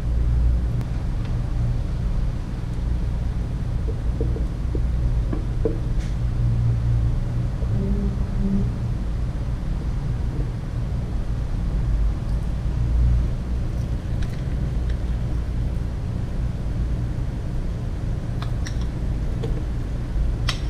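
A steady low rumble, like a fan or motor running, with a few soft clicks and taps as pieces of radish and fish are set into a pot.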